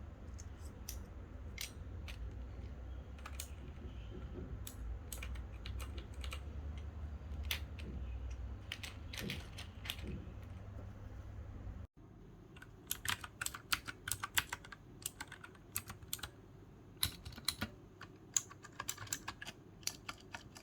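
Typing on a MageGee MK-Box 65% mechanical keyboard with clicky blue switches: irregular sharp key clicks. The first stretch has sparser keystrokes over a low hum; after a short break about twelve seconds in, the hum is gone and the clicks come faster and louder.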